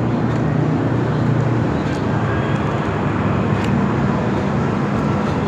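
Steady road-traffic noise with a low engine hum, from vehicles passing close by.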